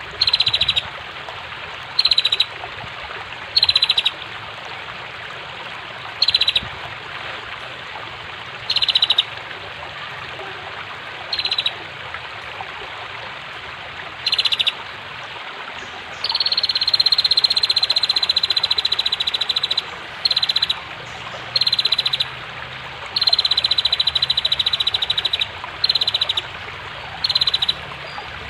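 Female bar-winged prinia (prenjak) giving rapid rattling calls, short bursts of under a second every couple of seconds, with one longer run of about four seconds past the middle and another of about two seconds soon after. Under them runs the steady rush of flowing water.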